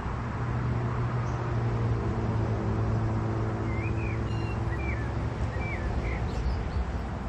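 Steady low hum of a distant engine, dying away near the end. A small bird chirps four times in quick short calls in the middle.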